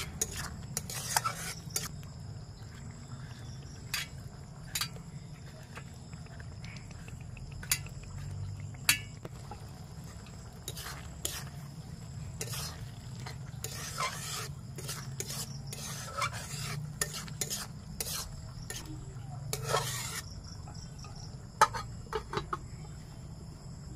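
Metal spatula stirring and scraping around a steel kadai of simmering taro and fish curry, with irregular light clinks against the pan. Near the end there is a sharp metallic clink as a lid is set on the pan.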